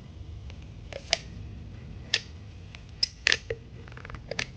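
Scattered sharp clicks and light knocks, about eight of them, over a steady low hum: the shoe and repair tools being handled.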